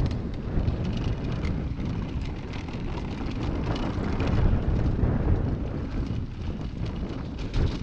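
Mountain bike riding down a dirt trail: wind buffeting the microphone over a steady rumble of tyres on dirt and leaves, with frequent small clicks and rattles from the bike over the bumps.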